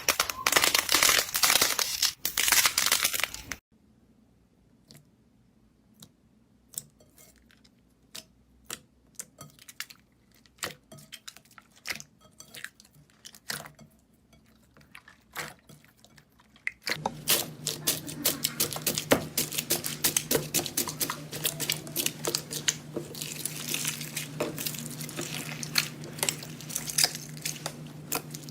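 Slime being squeezed and pressed by hand, crunching and crackling with small pops. A dense crunch opens it, then only scattered clicks and pops for a long stretch, then steady dense crackling returns with a faint low hum beneath it.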